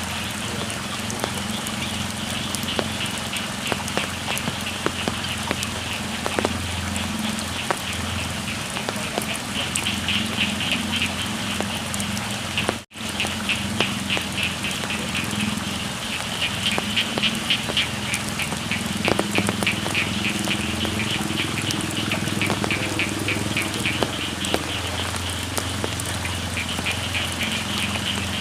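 Steady rain falling on a rice field, with a chorus of frogs calling in rapid pulsing trills. The sound cuts out for an instant about halfway through.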